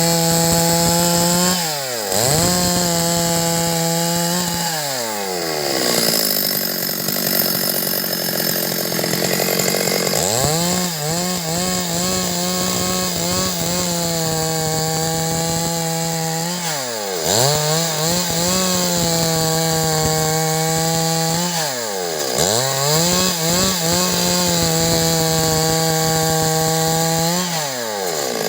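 Stihl MS 382 two-stroke chainsaw held at full throttle, with the revs dropping sharply and climbing back up about five times as the throttle is let off and squeezed again. From about five to ten seconds in it runs lower and rougher.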